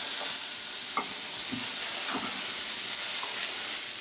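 Hot oil sizzling steadily in a steel kadai as fried prawns are lifted out with a utensil, with a sharp click about a second in and faint scraping of metal on the pan.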